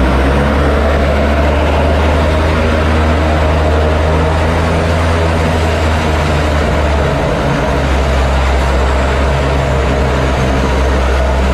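Seaplane's turboprop engines and propellers running steadily at low power while the float plane taxis on the water, a loud, even drone with a deep hum under it.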